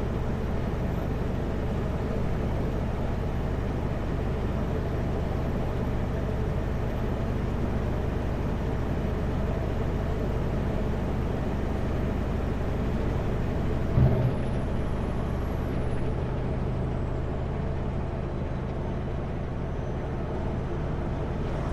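Kenworth W900L semi truck's diesel engine and road noise heard inside the cab while cruising, a steady low drone. A brief thump about two-thirds of the way through.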